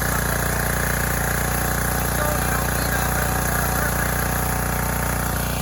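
Small generator engine running steadily and smoothly at full speed on biogas (methane) from a home digester, under the light load of a fan.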